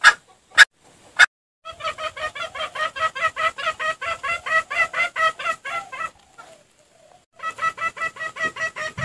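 Three sharp clicks in the first second and a half, then junglefowl clucking in two fast runs of about six clucks a second. The first run lasts about four seconds; the second starts after a short pause and is still going at the end. It is a lure call for attracting wild junglefowl.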